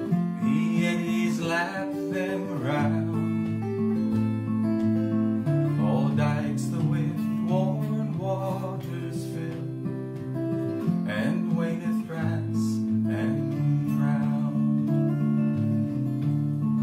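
Acoustic guitar strummed and picked, with a man singing a folk song over it in phrases.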